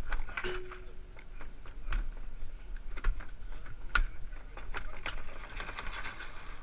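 Ski-jumping boots clumping up stairs covered with perforated mats, with irregular knocks and clatter from the carried skis, close to a helmet camera. A brief steady tone sounds about half a second in.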